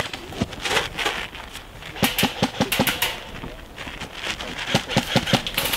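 Airsoft gunfire: electric replica rifles firing in quick runs of sharp clacks, thickest about two to three seconds in.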